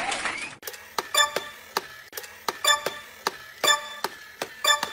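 A run of light ticks, each with a short ringing tone, coming unevenly at about two a second.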